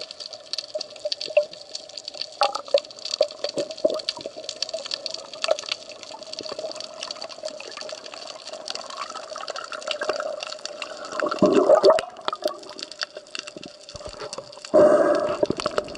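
Underwater ambience picked up by the camera: a steady water hiss full of small crackling clicks over a faint steady hum. Two louder rushing bursts come about eleven and a half seconds in and near the end.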